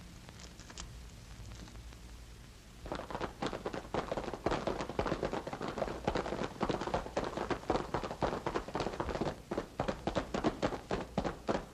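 Galloping horse hoofbeats made as a radio sound effect: a fast, even run of sharp knocks that starts about three seconds in, after a low background hum.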